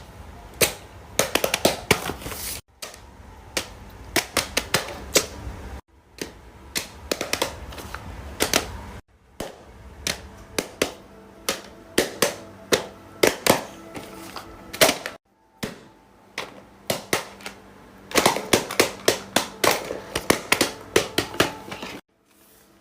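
Fidget toys being clicked and popped by hand: quick, sharp, irregular clicks, several a second, in a run of short clips that start and stop abruptly.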